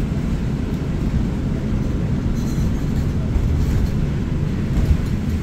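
Interior of a Chevrolet 4500 ARBOC Spirit of Freedom shuttle bus: a steady low engine and drivetrain rumble heard inside the passenger cabin.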